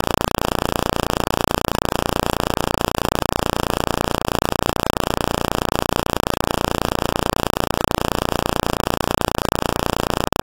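Loud, steady static: an even hiss with a buzz underneath that does not change, dropping out for an instant near the end.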